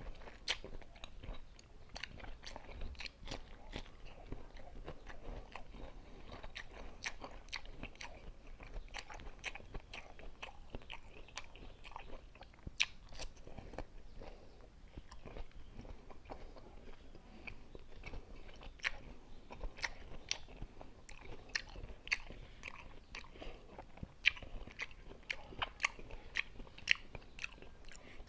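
Close-miked biting and chewing of crisp, unripe green mango, with many sharp, irregular crunches.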